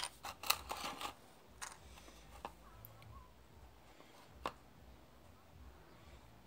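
Small clicks and taps from a paint container being handled and opened: a quick cluster in the first second, then a few single clicks, over faint room tone.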